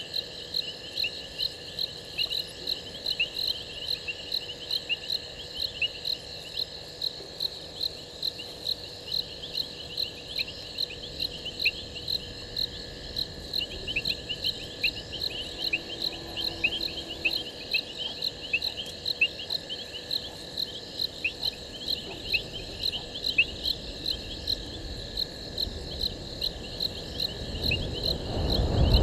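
Night chorus of crickets and other insects: one chirp repeats evenly about twice a second, with quicker, irregular chirps and a steady high trill beneath it. A low rumble builds near the end.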